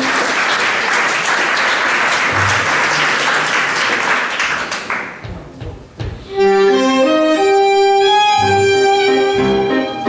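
Crowd applause that fades out over the first five seconds. About six seconds in, a tango ensemble of violin, bandoneón, piano and double bass starts playing a vals.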